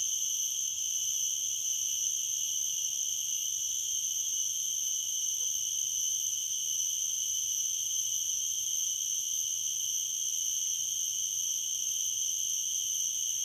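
Garengpung cicadas droning in a steady, unbroken high-pitched chorus.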